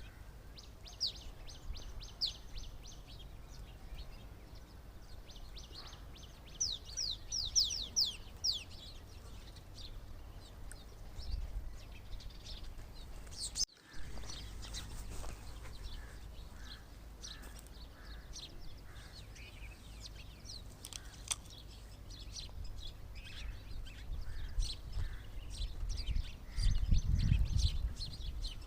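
Small birds chirping and twittering: quick series of high, falling chirps, with a steady low rumble underneath and a louder low rumble near the end. The sound cuts out for a moment about halfway through.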